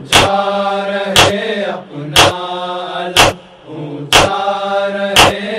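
Muharram noha chanted by a male voice, long held notes between lines, over a sharp beat about once a second.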